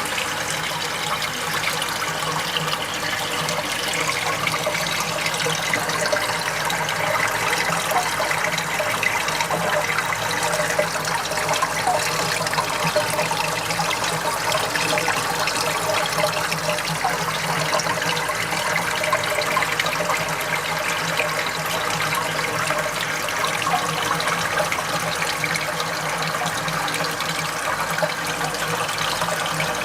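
Water flowing and splashing steadily through a multi-chamber pond filter, with a low steady hum underneath.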